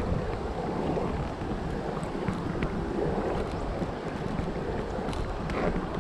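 Steady rushing of a shallow forest stream mixed with wind on the microphone, with a few faint clicks from hands handling a small fish.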